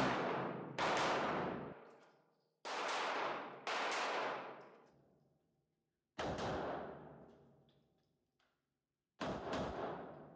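Single gunshots, about five of them at irregular intervals, each with a long ringing decay.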